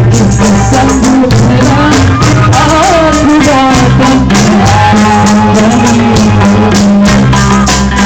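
Loud background music with a steady, fast beat of drums and shakers and a wavering melody line over it.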